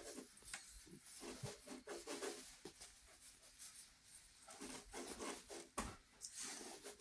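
Felt-tip marker scratching on paper in quick, uneven short strokes as lines are drawn, faint, with a few light taps.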